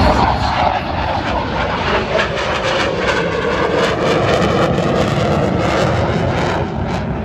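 Lockheed Martin F-22 Raptor's twin afterburning turbofans roaring loudly overhead during a low demonstration pass, with a rough crackle through the middle; the sound eases off near the end.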